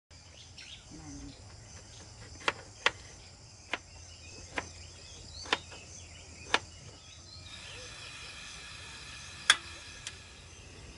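Insects, likely crickets, chirring steadily in a high chorus, with more voices joining about two thirds of the way through. About eight sharp clicks stand out over it at uneven intervals, the loudest near the end.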